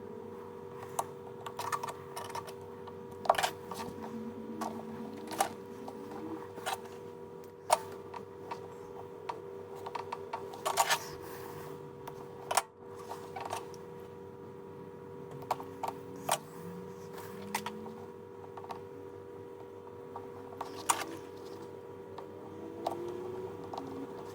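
Scattered light clicks and taps of a tool and adhesive tape being worked onto a phone's frame, irregular and a second or two apart, over a steady electrical hum.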